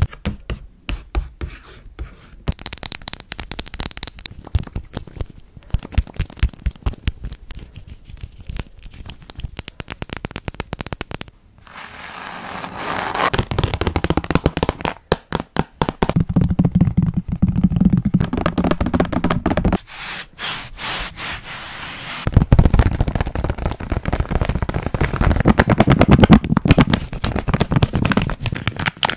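A quick run of close-miked ASMR triggers on a string of different objects. It starts with rapid fingernail tapping on a pink hardcover box or book, moves on to scratching and rubbing on a tan board, and ends with a plastic gummy pouch crinkling.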